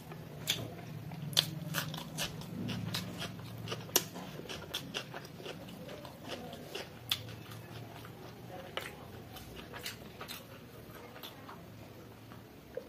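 Close-miked eating sounds from a mouthful of chicken biryani: chewing with wet lip-smacks and many sharp, irregular mouth clicks, busier in the first half.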